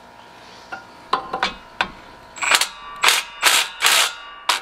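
A run of short, sharp mechanical bursts, about eight in four seconds, from a wrench backing out the engine mounting bolts on a riding mower.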